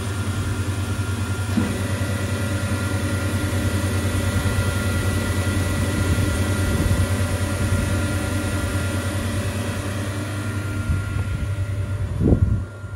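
Sliding table saw with scoring unit running with no cut under way: its motors and arbors give a steady low hum with a thin whine on top. A second, higher whine joins about a second and a half in, and there is a brief louder swell near the end.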